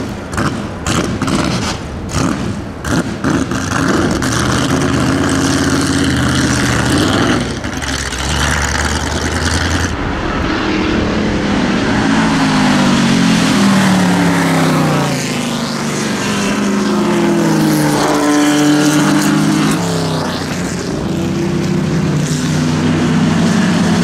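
Racing engines of historic sports-racing cars going past on a wet track, revving through gear changes with the pitch dropping as each car goes by, over the hiss of tyre spray. There are sharp pops and cracks in the first few seconds.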